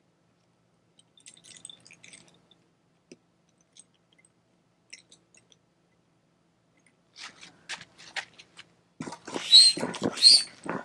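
Air pump inflating the back chamber of a Sea Eagle SE-370 inflatable kayak: faint handling clicks at first, then from about seven seconds a run of pumping strokes, each a rush of air, getting louder and coming about every 0.7 s near the end.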